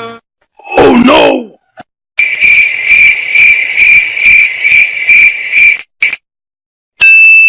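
Cricket chirping sound effect, the comedy 'awkward silence' cue: steady, high-pitched rhythmic chirps, about two a second, for about three and a half seconds. It comes after a short sound that slides up and down in pitch about a second in, and is followed by a brief high beep near the end.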